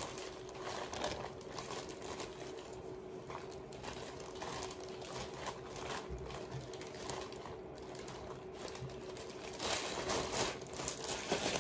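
Thin plastic disposable gloves crinkling as hands knead and squeeze a ground-beef meatloaf mixture. The crackling is irregular and grows louder near the end, over a faint steady hum.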